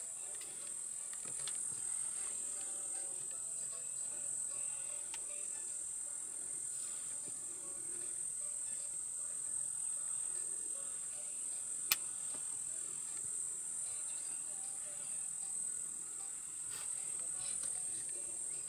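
A steady, high-pitched drone of insects shrilling in the bush, unbroken throughout, with one sharp click about twelve seconds in.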